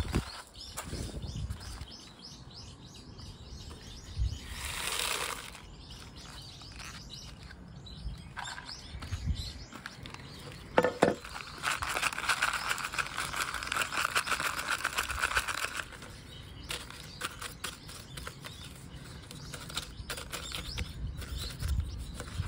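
Repotting handling sounds: a thin plastic pot squeezed and turned in the hands, the granular bonsai soil inside rattling and crunching, with scrapes and a sharp knock about eleven seconds in.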